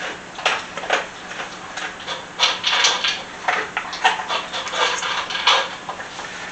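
Spatula scraping and knocking against a mixing bowl as thick biscuit-mix batter is spooned out, in irregular strokes about once or twice a second.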